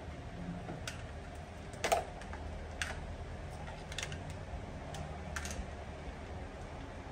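Electric cord being coiled by hand, with a handful of scattered light clicks and knocks as the cord and its plug are handled, the loudest about two seconds in.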